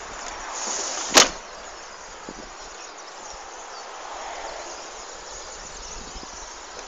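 Steady outdoor background hiss, with one sharp click about a second in and a few faint ticks later.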